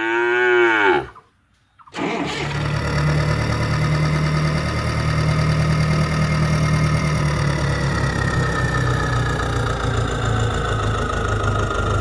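A cow moos once, one arching call of about a second. About two seconds in, a tractor engine starts and runs steadily, with a whine that slowly falls in pitch over the latter half.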